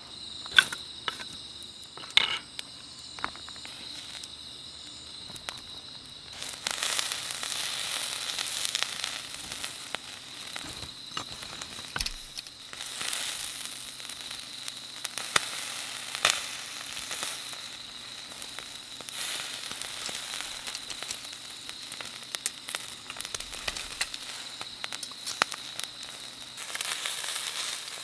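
Chicken-skin skewers sizzling on a grill grate over a wood fire. After a few sharp clicks, the sizzle starts up loudly about six seconds in and keeps going with scattered crackles.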